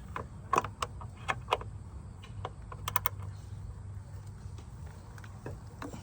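Irregular sharp metallic clicks and taps of a hand wrench working a fastener, a few at a time, over a low steady hum.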